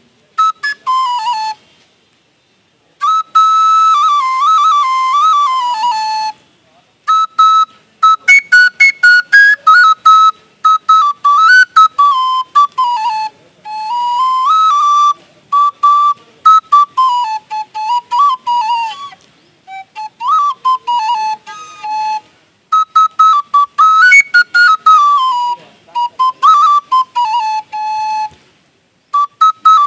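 Bamboo bansuri flute played by mouth: a single-line melody in phrases, with runs of quick, short repeated notes and brief pauses between phrases.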